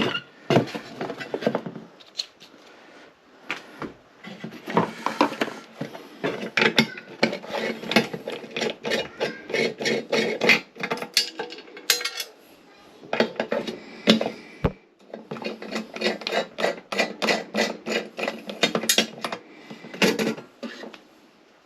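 Irregular clicking, knocking and scraping of metal parts being handled while a replacement bathroom exhaust fan motor is fitted to its mounting plate.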